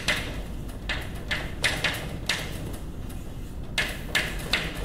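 Chalk writing on a blackboard: a run of short scratching strokes and taps, with a pause of about a second and a half in the middle.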